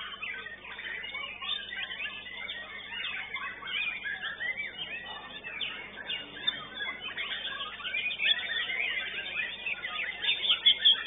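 Many caged songbirds singing at once, a dense overlapping chorus of chirps and whistles, with a few louder sharp notes near the end.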